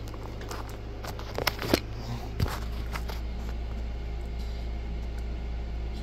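A few light handling clicks and rustles between about one and a half and two and a half seconds in, over a steady low hum of room equipment.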